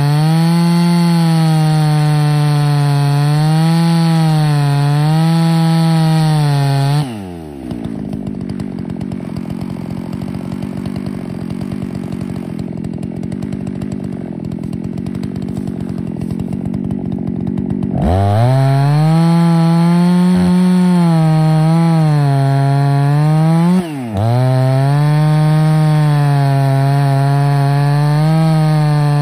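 Ported Husqvarna 288XP single-cylinder two-stroke chainsaw on an Alaskan chainsaw mill, ripping through an oak log at full throttle, its pitch wavering slightly under the load of the cut. About seven seconds in the throttle is released and the saw drops to idle for about ten seconds, then is revved back up to full speed and bites into the cut again, with one brief dip and recovery a few seconds later.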